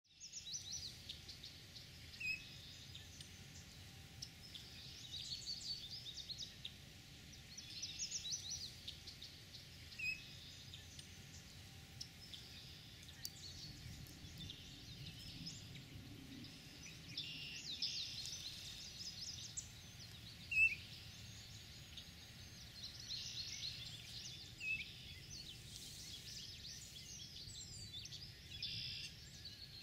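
Several songbirds singing at once, their songs overlapping throughout, with a few short, sharp chirps standing out at intervals, the loudest about two-thirds of the way through.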